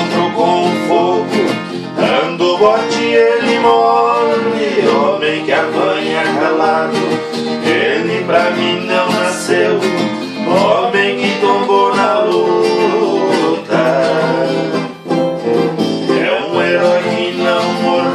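Viola caipira plucked in a lively sertanejo raiz tune, with a steady run of picked notes.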